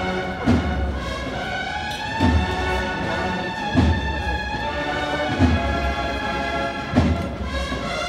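A processional band playing a slow Holy Week march. Sustained brass chords sound over a deep bass drum struck about every one and a half seconds, five strokes in all.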